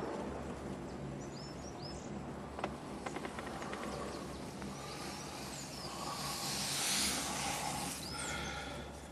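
Ride on a chairlift: a steady low hum from the lift, with a quick run of clicks about three seconds in and a few short, high squeaks scattered through it.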